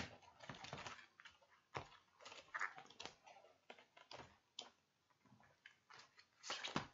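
Faint rustling and light taps of glossy paper and card as a spiral-bound album photobook is closed and handled, with scattered small clicks and a few louder handling noises about half a second in and near the end.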